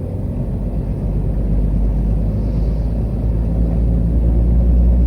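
Heavy truck on the move: a steady low rumble of engine and road noise, growing a little louder in the second half.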